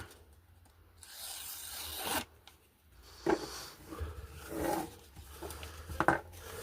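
Carbon-steel jackknife blade slicing through wrapping paper: a rasping hiss lasting about a second, then a few shorter scrapes and paper rustles.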